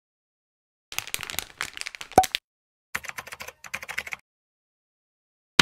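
Rapid small clicks and crackles of plastic earphone parts and a small lithium-polymer battery being handled close to the microphone, in two runs of about a second each with one sharper click in the first, then a loud sharp click at the very end.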